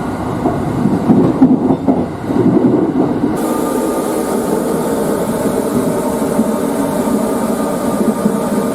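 A moving sleeper train's running noise: an uneven rumble at first, then from about three seconds in a steady hum with an even hiss over it.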